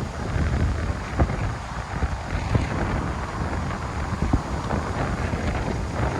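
Storm wind buffeting the microphone in a steady low rumble, with a few sharp taps about one, two and a half, and four seconds in.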